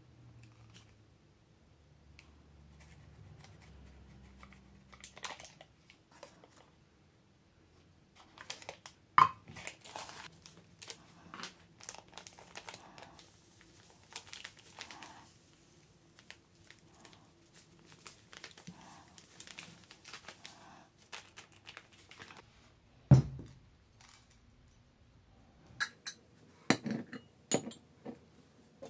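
Crinkling and rustling of a paper butter wrapper and a plastic sugar bag being handled over a frying pan. A single dull knock comes about four-fifths of the way through, then a few sharp clinks of glass bowls being set down near the end.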